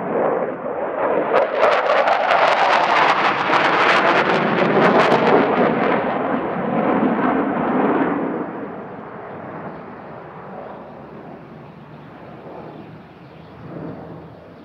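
Twin turbofan engines of an F/A-18C Hornet jet fighter in a display pass: loud, crackling jet noise that swells about a second in, then fades to a distant rumble after about eight seconds as the jet climbs away.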